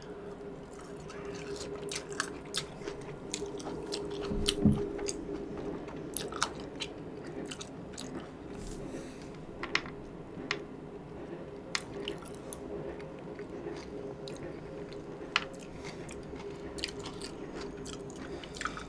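Close-miked chewing of whole kumquats, peel and all: a string of small wet clicks and crunches at an irregular pace, over a faint steady hum.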